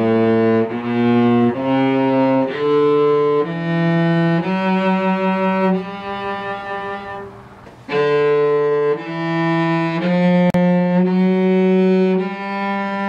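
Solo cello bowing a one-octave G minor scale upward from the low G, one note at a time, with the seventh degree raised so it leads into the top G, which is held. After a short pause about seven seconds in, a second, shorter phrase rises again to end on a long held note.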